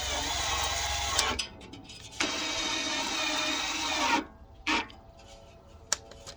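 Cordless drill running in two short bursts, about a second and a half then two seconds, driving screws to mount a drawer slide, followed by a couple of light clicks.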